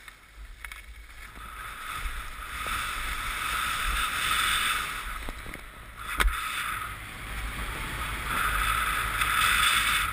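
Rushing, scraping hiss of gliding down a groomed ski run over packed snow, recorded by a GoPro, with low wind rumble on the microphone. The hiss swells and fades several times, and there is a sharp knock about six seconds in.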